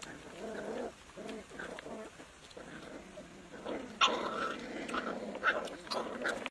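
Puppies growling in short bursts while they chew raw meat scraps, loudest about four seconds in.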